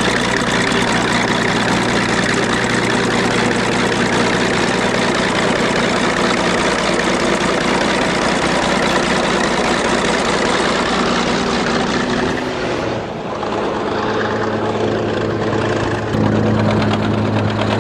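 Vehicle engine running steadily. A little past twelve seconds in, the sound dips briefly and changes, then settles into a steady hum that gets louder about sixteen seconds in.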